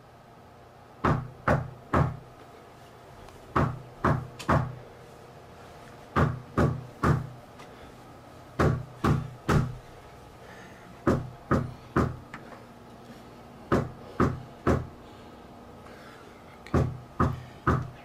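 Knocking on a door in sets of three quick knocks, seven sets in all, one set about every two and a half seconds.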